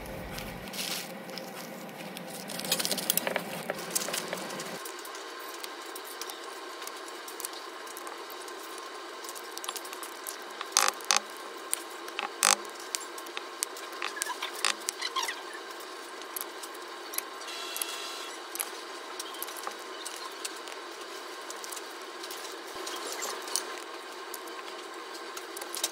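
Glass dexamethasone injection ampoules being handled on a bench: scattered sharp clicks and taps of glass, with a few louder ones about halfway through, over a steady background hiss.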